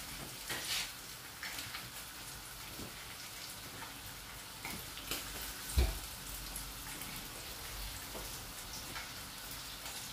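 Sea bass fillets sizzling in a frying pan over a gas flame, a steady hiss with light crackles, and a single dull knock about six seconds in.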